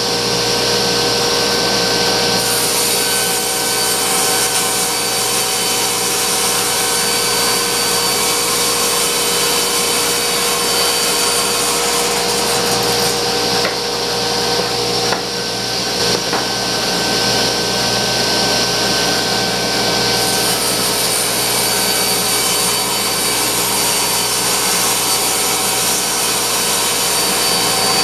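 Table saw running and ripping a board of old plastic-laminate countertop: a steady motor and blade whine under the hiss of the cut, which shifts a few times as the board is fed through.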